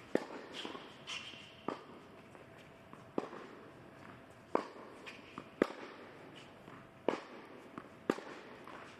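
Tennis rally on an indoor hard court: a ball struck back and forth by racket strings, seven sharp pops about every second and a half.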